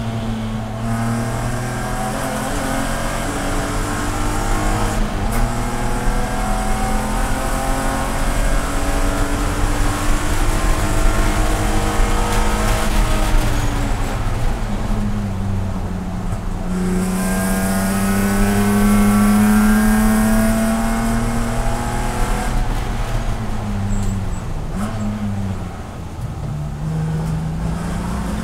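BMW Spec E46 race car's inline-six engine at racing speed, heard from inside the cabin: revs climb hard through the gears, hold high, then fall under braking with a brief throttle blip on the downshift before it accelerates again near the end.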